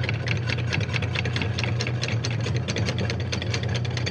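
Anchor windlass hauling in chain, the links clicking rapidly and evenly over the gypsy, with a steady low hum underneath.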